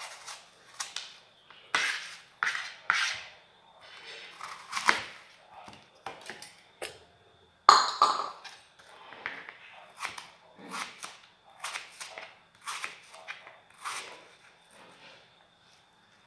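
Kitchen knife peeling, halving and slicing a crisp green apple on a cutting board: irregular crunches of the blade through the firm flesh, the loudest and sharpest about eight seconds in.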